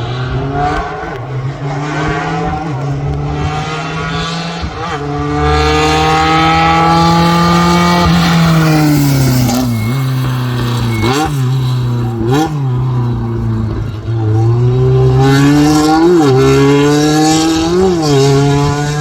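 Hill-climb race car engine at high revs, pitch climbing slowly then falling. Several quick dips and recoveries in pitch, from gear changes and throttle lifts, come about 10, 11, 12.5, 16 and 18 seconds in.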